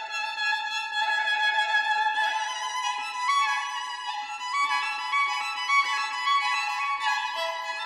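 Background music: a violin playing a melody of changing notes.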